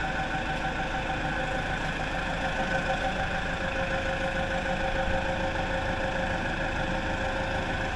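Forklift engine idling steadily while it holds a suspended load, with a constant hum and a few steady held tones.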